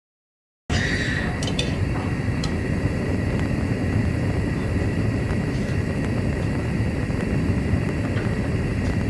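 Steady rumbling factory noise with a thin high whine running through it and a few faint knocks. It starts after a short gap of silence at the beginning.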